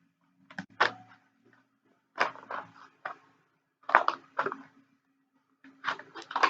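Cardboard boxes and packaging being handled and opened, in four short bursts of rustling and knocking, over a faint steady hum.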